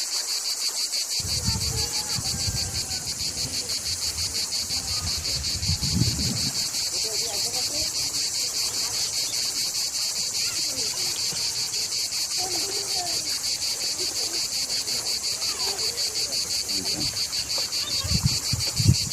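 Insects chirping: a steady high-pitched pulsing of about five chirps a second, with a few low thumps around a second and a half in and near the end.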